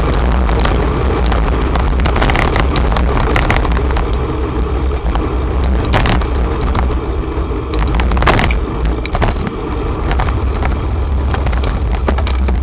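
Wind rumbling on the microphone of a camera riding on a moving bicycle in city traffic, with car noise mixed in. A scatter of sharp clicks and knocks runs through it, the strongest about six and eight seconds in.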